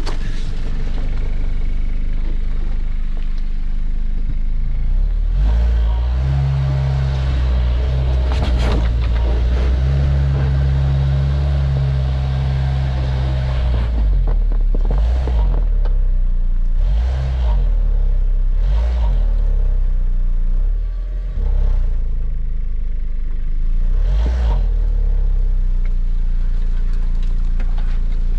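Car engine revving under load as the vehicle drives through loose sand, heaviest for several seconds in the first half. This is followed by several short bursts of rushing noise, as the engine is given throttle in spurts.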